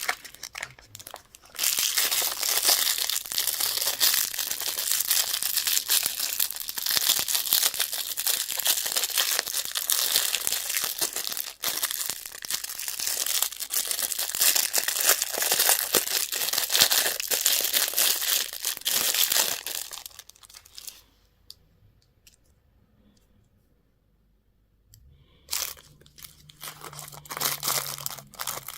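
Candy wrapper being crinkled and torn open: a dense, crackling rustle that runs for nearly twenty seconds and then stops. After a few seconds' pause come a few short crinkles near the end.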